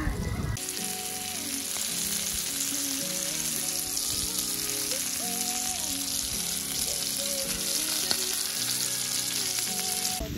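A thick beef steak sizzling steadily in hot fat in a frying pan, starting about half a second in. Soft background music plays underneath.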